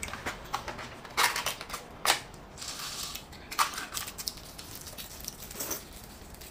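Eating sounds from cups of rice noodles: irregular slurps and chewing, with the light crinkle of a small food packet being opened.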